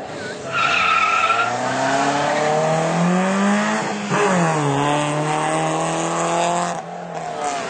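Drag-racing cars launching: a brief tire squeal, then a car engine accelerating hard at full throttle. Its pitch climbs, drops at a gear change about four seconds in, then holds steady until the sound falls away near the end.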